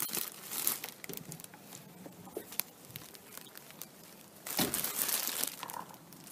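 Plastic bread bag crinkling and rustling as it is handled, with scattered crackles and a louder rustle about four and a half seconds in.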